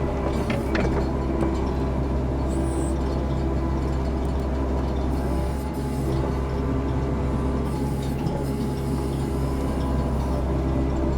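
Compact excavator's diesel engine running steadily at working speed.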